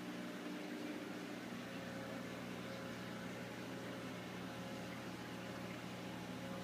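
Steady electrical hum with an even hiss from running aquarium equipment, unchanging throughout.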